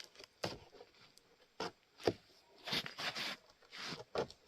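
Cardboard box being opened and its contents handled: a few sharp knocks and taps, and a stretch of rustling about three seconds in.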